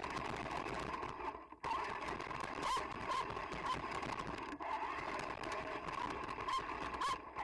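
Traxxas TRX-4 RC crawler's electric motor and drivetrain whirring steadily, dipping briefly twice as the throttle eases off.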